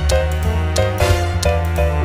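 Background music with a steady beat: bass, drums and a plucked guitar-like melody.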